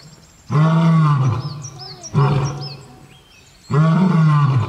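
Male lion roaring in a series of deep calls: a long roar about half a second in, a shorter one about two seconds in, and another long one near the end, each dropping in pitch as it fades.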